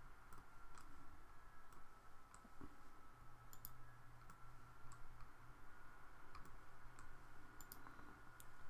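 Faint, scattered clicks of a computer mouse, a few seconds apart and some in quick pairs, over a faint steady hum.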